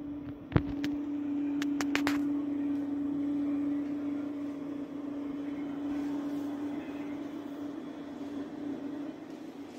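A 2 W full-colour RGB disco laser projector running, giving off a steady hum at one pitch. A few sharp clicks come in the first two seconds.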